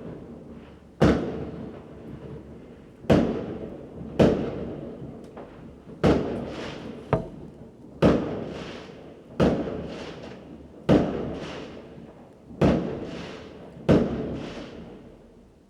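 New Year's Eve fireworks exploding: about ten loud bangs, one every one to two seconds, each followed by a rolling echo that dies away.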